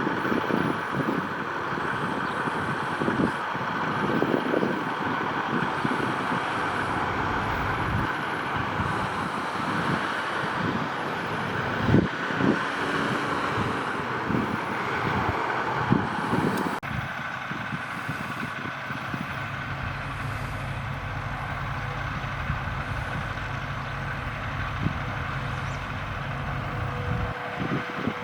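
Steady outdoor background noise with a low rumble of vehicle traffic and scattered soft knocks. Just over halfway through the sound changes abruptly, and a low steady hum sets in.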